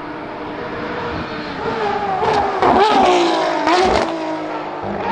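Ferrari FXX K Evo's naturally aspirated V12 race engine at high revs, growing louder as the car nears. Around the middle its pitch drops and jumps through quick gear changes, with a few sharp exhaust cracks.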